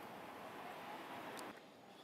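Steady outdoor background noise, a faint even hiss with no distinct event in it, that drops off abruptly about one and a half seconds in to a quieter background.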